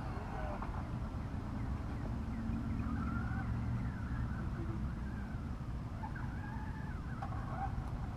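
Traxxas Slash radio-control truck's electric motor whining, its pitch rising and falling again and again with the throttle, over a steady low rumble.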